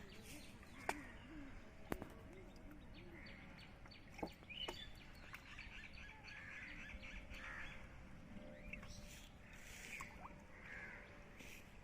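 Small birds chirping and twittering faintly, with a few sharp clicks.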